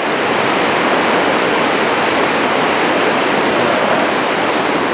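Rushing river water: fast current breaking over rapids in a steady, even wash of whitewater noise.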